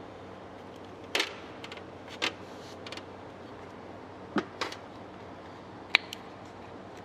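Short, scattered clicks and knocks of oily metal VANOS parts being handled and fitted together by hand in a steel tray, about five in all, over a low steady hum.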